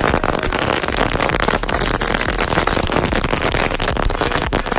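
A long string of firecrackers going off in a rapid, unbroken barrage of cracks, the bangs overlapping so densely that they merge into one loud crackle.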